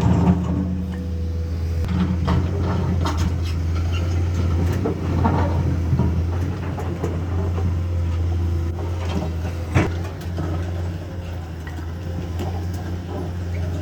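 Komatsu excavator's diesel engine running steadily under work, with scattered knocks and clanks and one sharp loud clank about ten seconds in.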